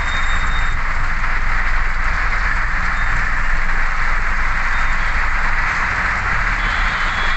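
Heavy rain falling on a car's roof and windshield, heard from inside the car as a steady hiss, with a low hum underneath.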